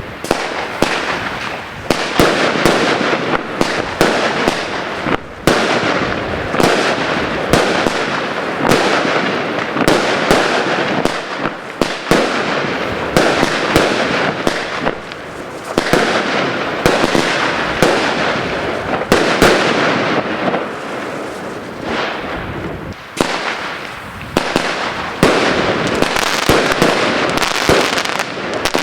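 Consumer fireworks going off: dense, continuous crackling packed with sharp bangs, easing for a moment every few seconds before picking up again.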